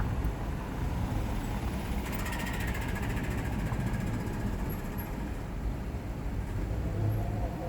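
Steady low rumble of street background noise, with a faint hiss swelling briefly about two seconds in.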